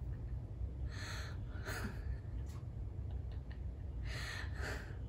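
A woman's short breathy exhalations and soft laughs, two pairs of quick puffs of breath, over a steady low hum.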